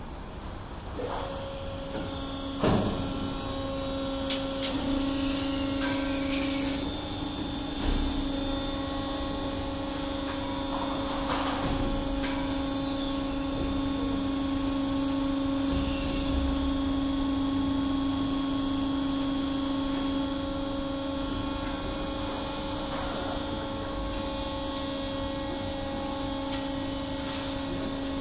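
Bio-waste handling machinery running: a walking-floor feeder and screw conveyor giving a steady hum, with scraping and rustling as moist leafy waste is pushed into the turning screw. A sharp knock about three seconds in and another near eight seconds.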